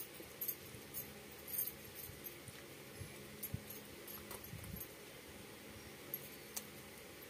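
Faint, scattered wet clicks and smacks of eating rice by hand from a banana leaf: fingers mixing and squishing rice, with chewing and lip smacks.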